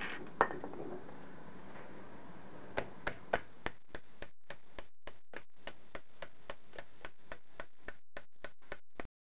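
Light metal taps from a small hammer striking a part gripped in water pump pliers, steady at about three a second, driving a rubber seal down into place. A single sharp click comes about half a second in.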